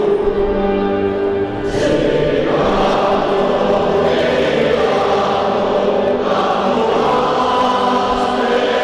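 A crowd of football supporters singing a chant together in unison, with long held notes.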